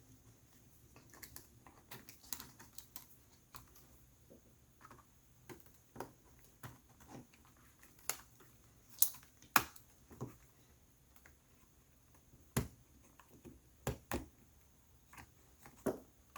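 Scattered sharp plastic clicks and taps from working a ThinkPad X1 Yoga Gen 1 laptop keyboard loose from its chassis, where it is binding in the corners. The clicks come irregularly, a few louder ones in the middle.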